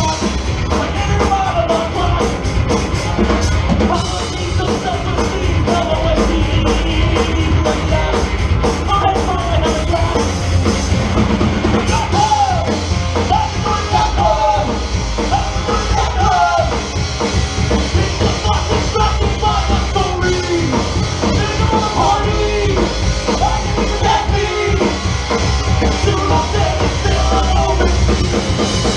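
Live rock band playing loudly: drum kit and bass keep a steady beat while a melody line over the top bends up and down in pitch.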